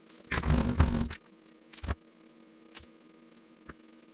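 Tool handling on a metal workbench: a brief loud scraping rustle about half a second in, then a sharp knock and a few faint ticks, over a steady low hum.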